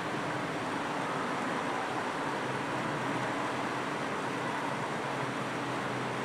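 Steady whirring hiss of room air conditioning or fans, with a faint steady hum underneath.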